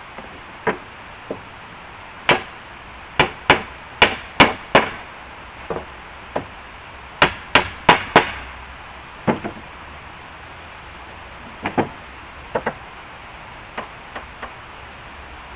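A tool striking wood with sharp, irregular knocks, about twenty in all, some in quick runs of three or four, over a steady background hiss.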